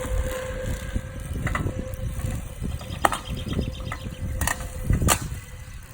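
Homemade radio-controlled lawn mower driving over grass, its motor whining steadily with a low rumble, broken by several sharp knocks. The loudest knock, about five seconds in, is the mower throwing out a Pepsi can.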